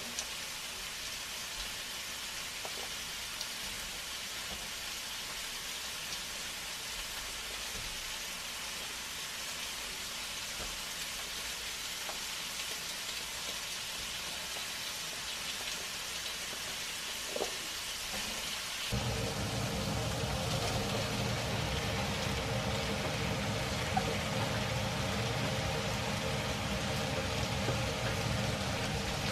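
Beef cubes sizzling in a frying pan, a steady hiss. A little over halfway through, a low steady hum joins in and the sound gets louder.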